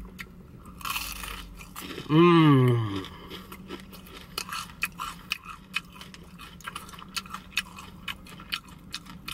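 Close-miked chewing of crispy Popeyes fried chicken, with many small, irregular crunches of the breading. About two seconds in, a hummed "mmm" falls in pitch.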